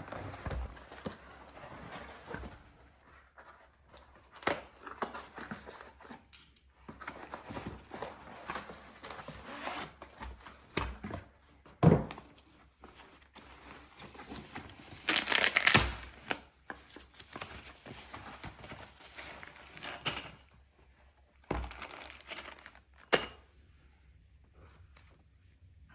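Packaging of a large TV being opened and handled: crinkling, tearing and scattered knocks, with a louder rustle lasting about a second around fifteen seconds in and sharp knocks near twelve and twenty-three seconds.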